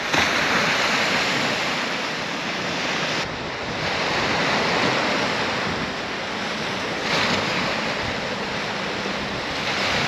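Small ocean waves washing in and breaking over rocks and a pebble shore: a steady rush of surf that swells and eases every few seconds.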